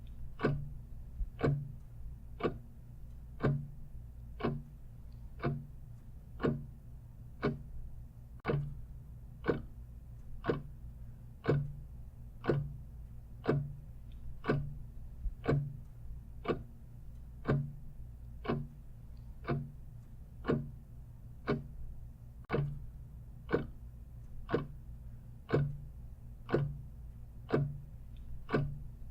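Clock ticking steadily, about one tick a second, over a faint steady low hum.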